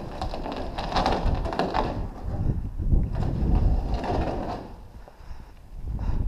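Footsteps on a paved yard with wind and handling rumble on a head-mounted action camera's microphone as the wearer walks. The sound comes in two louder stretches with a lull about five seconds in.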